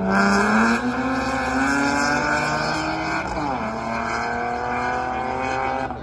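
A car's engine accelerating hard on a race track, its pitch climbing, dropping suddenly about three and a half seconds in as it shifts up, then climbing again.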